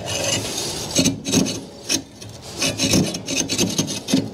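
Hacksaw cutting through a trolling motor's composite fiberglass shaft, in repeated back-and-forth rasping strokes.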